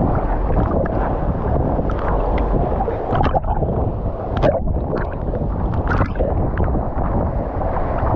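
Steady rushing of falling and moving water at a waterfall, mixed with wind buffeting the microphone. Several brief sharp sounds break through between about three and six seconds in.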